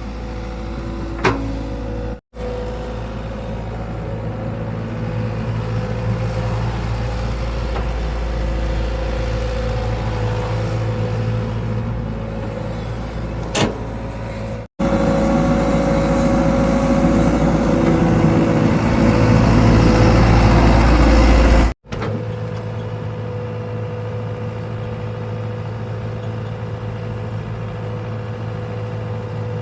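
Excavator's diesel engine running steadily with a deep rumble and a hum, louder and busier for several seconds in the middle as if working under load. Three abrupt breaks cut the sound, and there are two short clicks.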